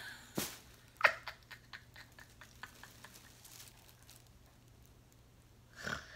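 A woman's stifled laughter. A snort comes about a second in, then a run of short breathy bursts every fifth of a second or so that fade away, and another breathy burst near the end.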